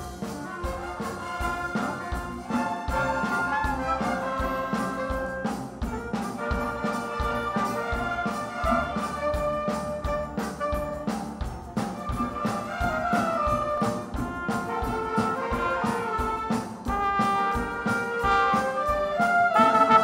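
Youth orchestra of strings and percussion playing a tune over a steady beat, about two strokes a second, swelling louder right at the end.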